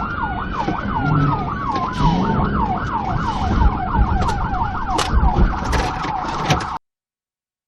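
Police car siren yelping, its up-and-down cycles speeding up into a fast warble. A slower falling wail runs under it for the first couple of seconds, over engine and road noise. Near the end it all cuts off abruptly.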